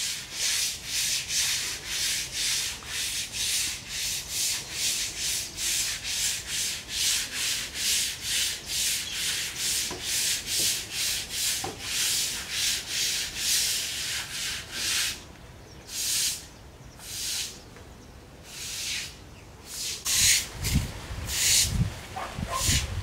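Straw broom scrubbing a wet, soapy floor in brisk, regular strokes, about two a second, slowing to spaced single strokes after about 15 s. Near the end, some heavier low sounds join the strokes.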